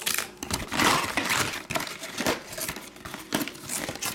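Crinkling and rustling of a foil-wrapped trading card pack and a cardboard box being handled, in irregular scrapes and crackles that are loudest about a second in.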